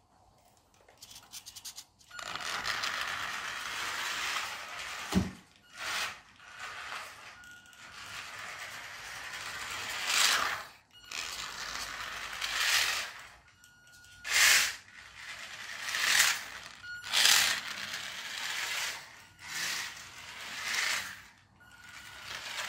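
Small brushed motor and gear train of a radio-controlled toy car running in repeated throttle bursts, its hard plastic wheels rattling and scraping over a wooden floor. About ten bursts, starting about two seconds in.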